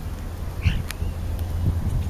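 Wind rumbling on the microphone while European starlings feed at a plastic tub close by, with a short chirp and a sharp click about a second in and a few soft thumps.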